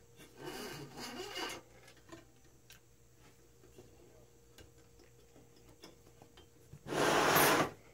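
Handling noise as a rubber GT2 timing belt is fed around a pulley on a 3D printer frame: soft rubbing and scattered light ticks, with a louder rasping rub lasting under a second about seven seconds in.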